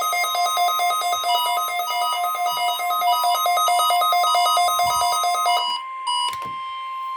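NOAA weather radio alert for a weekly test: fast, shrill electronic beeping over a tone near 1 kHz, the weather radio warning alarm tone. About five and a half seconds in the beeping stops, a click is heard, and the steady warning tone carries on.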